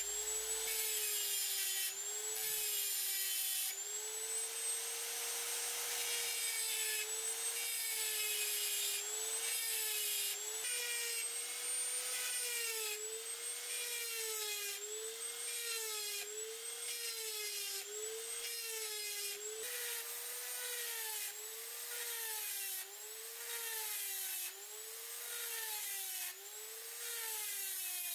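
Handheld rotary tool with a small sanding drum grinding notches into the metal end cap of a knife handle: a steady high motor whine over a gritty grinding hiss. The whine's pitch dips and recovers again and again, about once a second in the second half, as the drum is pressed into the metal for each notch.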